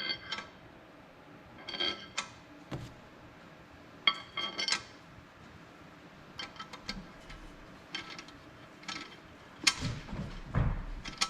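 Metal hardware clinking and rattling as bolts are fitted and started by hand to fasten a ceiling fan's motor cover: several bursts of ringing clinks, then lighter ticks and a few dull knocks near the end.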